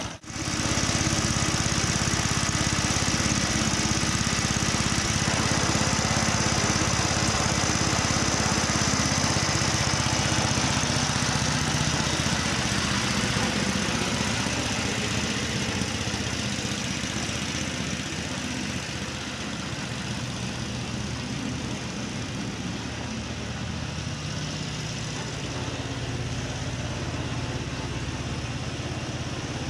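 Ransomes Marquis cylinder mower's petrol engine idling steadily as it warms up from a cold start with a little choke. It settles a little quieter after about fifteen seconds.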